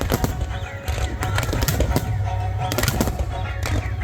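Fireworks going off in rapid bangs and crackles, with music playing underneath.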